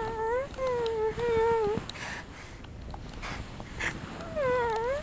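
A woman's voice making short, whiny puppy-like whimpers: three in the first two seconds, then a few soft breathy sounds, and one more whine that dips and rises near the end.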